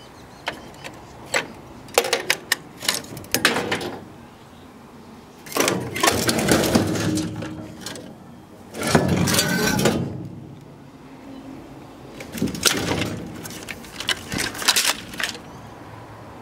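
Metal parts and sheet-metal cover panels of a scrapped industrial drive cabinet being handled and pulled off: sharp clanks and rattles, with two longer scraping stretches in the middle.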